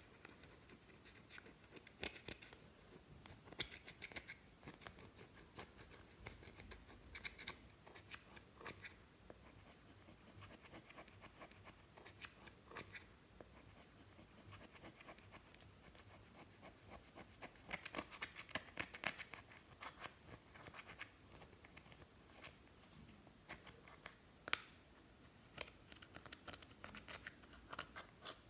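A thin metal spatula scraping and digging pressed powder eyeshadow out of a palette's pans, the powder crumbling, in short spells of scratchy clicking, busiest about two-thirds of the way in.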